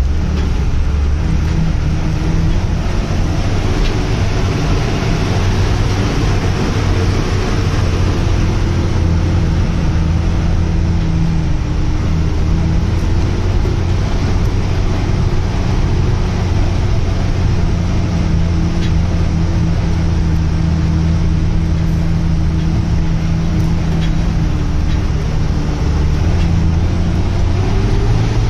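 Heavy diesel vehicle's engine running steadily with a deep, even drone, its speed wavering only slightly.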